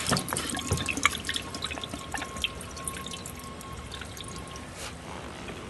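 Water trickling and dripping from the airlift tubes of an air-pump-driven bucket hydroponics system into its net pot, in many small irregular drips. The splashing eases off over the first couple of seconds as the air pump is turned down to low, then keeps going as a thinner trickle.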